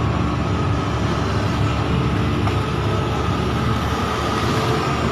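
Excavator's diesel engine running steadily, with a steady high whine over the low rumble.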